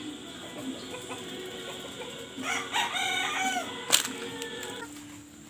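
A rooster crows once, starting about two and a half seconds in: a drawn-out call of several rising and falling notes. A single sharp click comes right after it.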